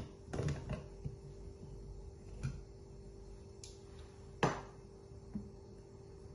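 Light knocks and clicks of a blender jar being handled on a countertop, with one sharper knock about halfway through, over a faint steady hum.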